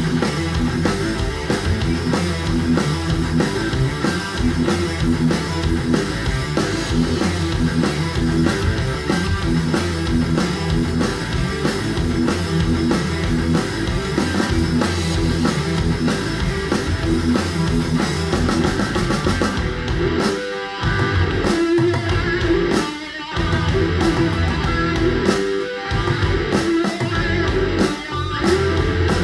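Stoner metal track with electric guitar riffs and a drum kit, played through a pair of B&W Vision V201 two-way bookshelf speakers and picked up by a microphone in the room. In the last third the riff stops short several times.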